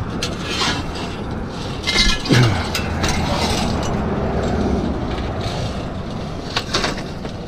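A long piece of wiry scrap metal clinking and scraping as it is hauled up, with a few sharp knocks, over a steady rushing noise that swells slightly in the middle.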